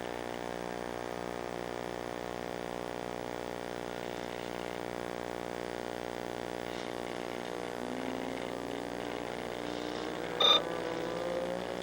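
Model airplane's motor and propeller running steadily in flight, with the pitch rising about eight seconds in as the throttle is opened. A brief, sharp sound cuts in near the end.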